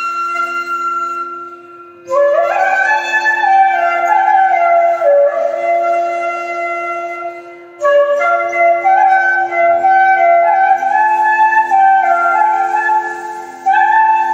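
Bamboo bansuri flute playing a film-song melody in raga Mohanam, in phrases with sliding notes, broken by short breaths about 2 and 8 seconds in. A steady drone sounds beneath.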